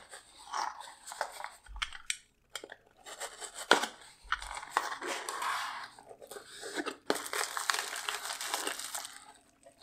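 Cardboard and plastic packaging rustling, scraping and crinkling with scattered clicks as a small cardboard parts box is handled and opened and a bubble-wrap bag is lifted out.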